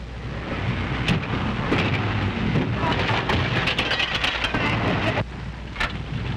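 Early-1930s open touring car driving fast over rough hillside ground: engine and bouncing chassis heard as a dense noisy rush, crackling with many sharp clicks, as on an old optical film soundtrack.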